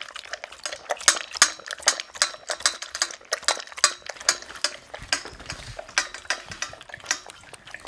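A dog lapping goat's milk from a stainless steel bowl, with a quick run of wet laps at about three or four a second. Near the end, a cat lapping milk from a ceramic bowl.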